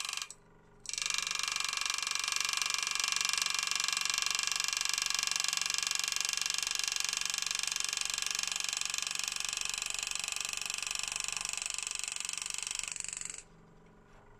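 Power-assisted engraving graver buzzing with rapid, even strokes as it cuts a line into brass. It breaks off briefly about half a second in, then runs steadily and cuts off near the end.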